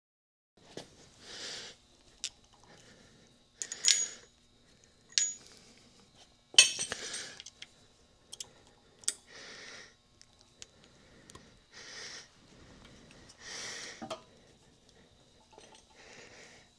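Metal tools and parts clinking and knocking together as they are handled: a series of sharp clinks, the loudest about six and a half seconds in, with softer rustling between them.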